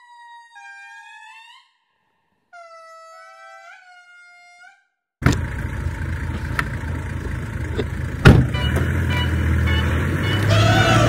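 Two short phrases of a high, clear, whistle-like call, each note sliding up at its end. About five seconds in it cuts abruptly to a loud, low outdoor rumble with a few sharp knocks, and music with a gliding melody begins near the end.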